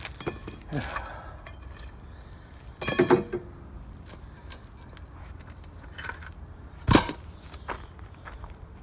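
Metal parts of a pool heater clinking and knocking as it is taken apart, with a short clatter about three seconds in and a single sharp knock near the seven-second mark.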